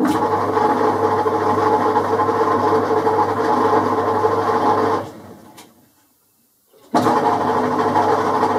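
Boxford metal lathe running under power while screw-cutting a left-hand 8 tpi Acme thread: a steady motor and gear-train hum that is switched off about five seconds in, winds down to silence, and starts up again abruptly about two seconds later.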